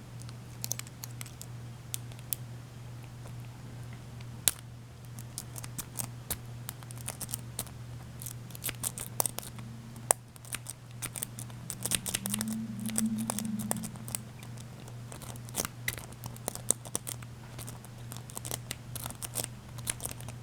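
Snake rake scraping in and out of a laminated padlock's keyway with many quick, irregular metal clicks as it drags over the pins under tension, without the lock opening.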